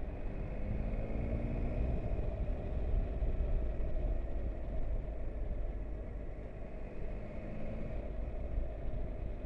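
Motorcycle engine pulling away and rising in pitch over the first couple of seconds, then running steadily at road speed, over a constant low wind rumble on the bike-mounted microphone.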